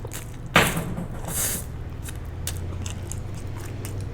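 Close-miked mouth sounds of a person eating: a sharp mouth noise about half a second in, a brief hiss soon after, then quiet chewing with faint clicks over a low steady hum.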